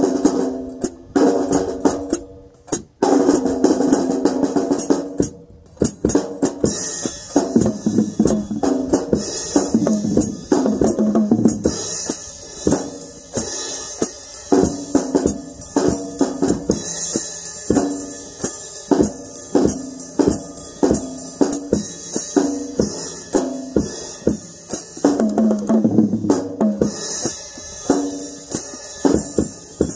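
Small acoustic drum kit played in a swing groove: cymbals ringing over snare and tom hits, with two brief breaks in the first six seconds.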